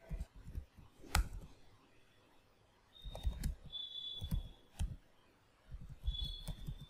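Computer keyboard being typed on, keystrokes clicking in short irregular bursts with pauses between them, one sharper click about a second in.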